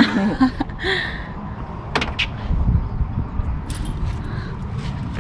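Small metal clinks and jingles, a pet name tag and leash clip being handled, with a few scattered clicks, over a steady low rumble.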